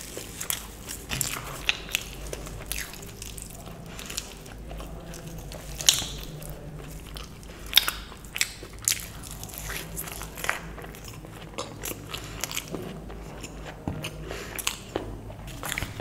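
Close-miked eating: biting and chewing pieces of luchi (puffed deep-fried flatbread) dipped in aloo dum potato curry, heard as a string of short sharp mouth clicks and bites, the two loudest about six and eight seconds in.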